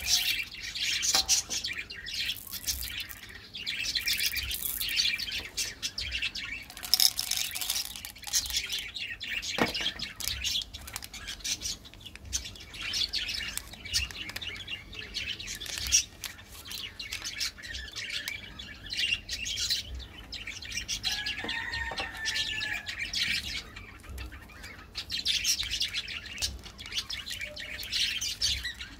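Small birds chirping continuously, with one brief gliding call about three-quarters of the way through.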